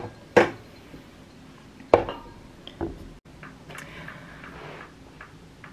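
A drinking glass clinking against a hard surface: a few sharp knocks, the loudest about two seconds in with a short ring after it.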